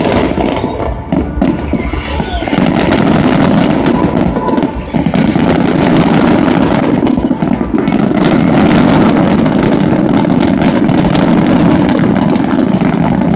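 Aerial fireworks going off in rapid succession: a dense, continuous barrage of crackling and bangs that grows louder and thicker about two seconds in.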